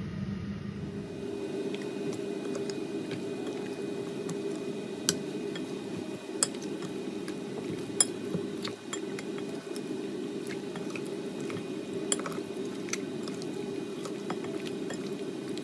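Fork mixing seasoned raw oxtail pieces in a glass bowl: wet squishing with a few sharp clinks of the fork against the glass, over a steady low hum.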